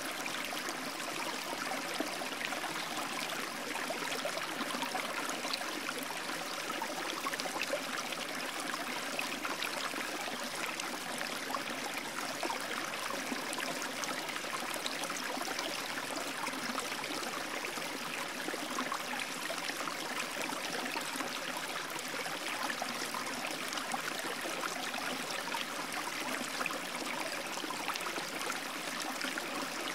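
Steady rushing of running water, like a stream, unchanging throughout.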